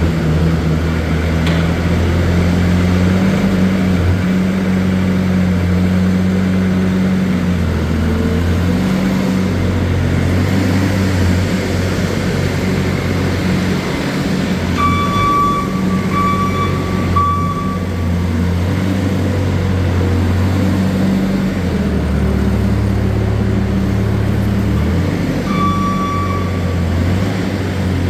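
Bobcat S550 skid steer's diesel engine running, its pitch shifting up and down as the machine is worked. A beeping tone sounds twice, about fifteen seconds in and again near the end.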